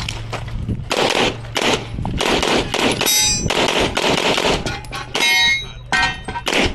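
A rapid string of pistol shots during a practical-shooting stage, with steel targets ringing out when struck.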